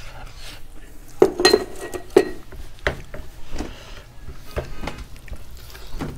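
Fingers mixing and scooping rice and curry on a stainless steel plate, with several sharp metallic clinks against the plate. The loudest come between one and two seconds in, one ringing briefly.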